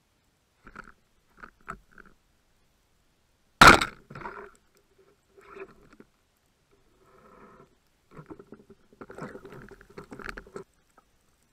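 Carbon-barrelled band speargun firing underwater: one sharp, loud crack about four seconds in. Scattered quieter clicks and rattles of the gun and line come before and after it.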